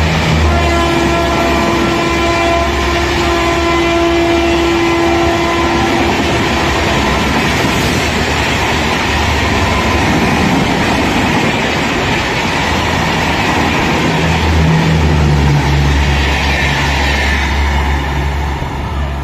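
Garib Rath Express coaches rushing past at speed, wheels clattering on the rails. The electric locomotive's horn sounds one long blast during the first six seconds. The noise drops away near the end as the last coach passes.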